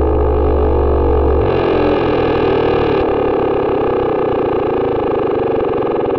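Software modular synthesizer drone: a thick, raspy sustained cluster of oscillator tones, swirling through a rotary-speaker effect. About a second and a half in the deep bass drops out and a brighter, buzzier layer comes in for about a second and a half as the oscillators' waveforms are switched.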